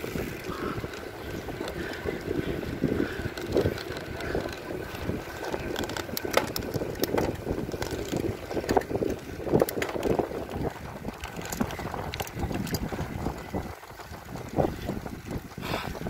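Wind buffeting the microphone of a phone carried on a moving bicycle, with rolling bicycle noise and a run of sharp clicks in the middle.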